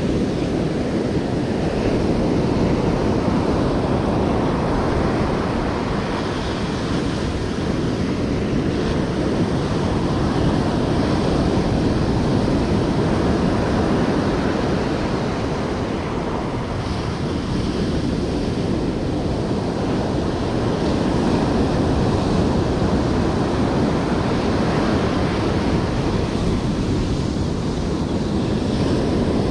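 Ocean surf breaking and washing up a sandy beach, a steady roar of water that swells and eases as the waves come in, with wind buffeting the microphone.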